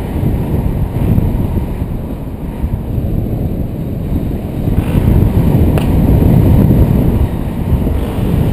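Wind rushing and buffeting over the camera microphone of a paraglider in flight, a steady low rumble with the glider flying accelerated on its speed bar. It swells louder for a couple of seconds after the middle.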